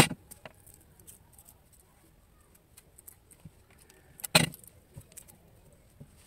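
Utility knife working on a coaxial cable, with small clicks and scrapes as the cable is handled and stripped. There is a sharp click at the very start, and a short, louder scraping cut through the copper shield and braid a little past four seconds in.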